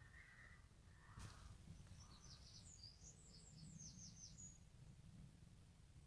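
Faint outdoor birdsong: a small songbird sings one short, fast phrase of high notes about two seconds in, with a few fainter, lower bird calls before it. A single sharp click comes about a second in.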